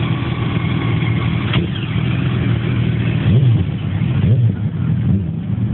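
Motorcycle engines running steadily, with a couple of short revs that rise and fall in pitch about three and four seconds in.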